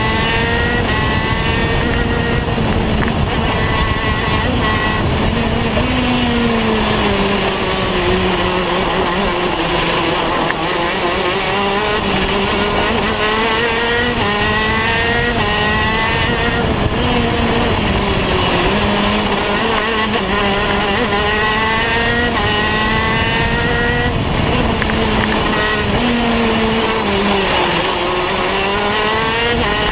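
KZ2 shifter kart's 125cc two-stroke engine heard on board at racing speed, loud throughout. Its pitch climbs in short repeated steps as it revs up through the gears, and drops low where it brakes and downshifts for corners.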